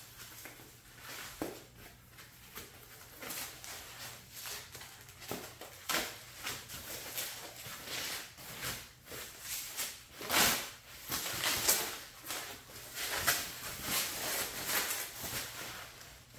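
Plastic packaging wrap rustling and crinkling as it is pulled off a plastic dirt-bike fender, in irregular bursts that get louder and busier in the second half.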